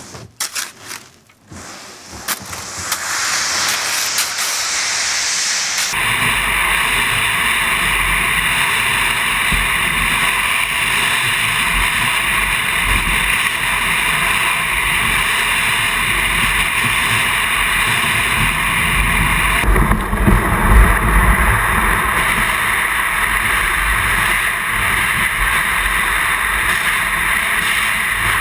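Plastic sea kayak tobogganing down a snowy slope: a few knocks and scrapes as it is pushed off with the paddle, then a loud, steady rushing hiss of the hull sliding over snow, mixed with wind buffeting the deck-mounted camera's microphone.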